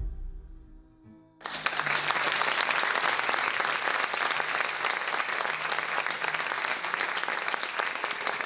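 A piece of gentle music ends on a fading last note, then about a second and a half in an audience bursts into applause, dense steady clapping that holds on.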